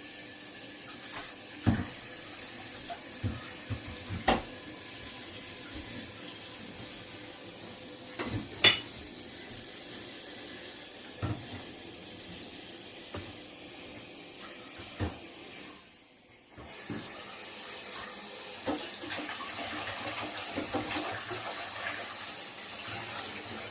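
Water running from a kitchen tap into a sink, with scattered sharp knocks and clinks of dishes or utensils. The flow breaks off briefly about two-thirds of the way through.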